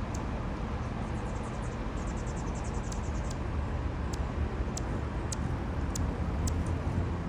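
Hummingbird chip calls: short, sharp, high chips, a quick run of them early on, then single chips spaced about half a second to a second apart, over a steady low rumble.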